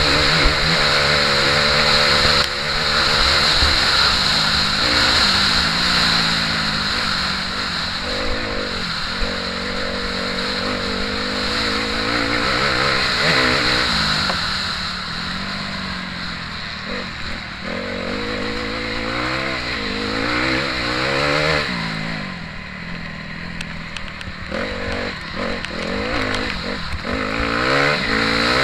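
Motocross bike engine heard from on the bike, revving up and dropping back again and again as the rider accelerates, changes gear and rolls off between turns.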